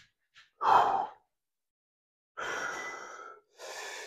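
A weightlifter's heavy sigh about half a second in, then two hissing breaths, one after the other.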